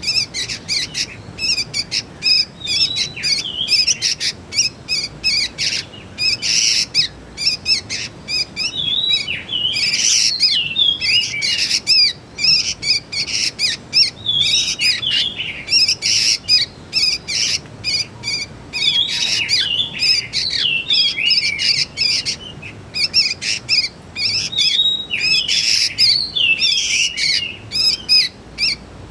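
Young sooty-headed bulbuls (kutilang) calling in a constant stream of short, rapid chirps and squeaky twisting notes.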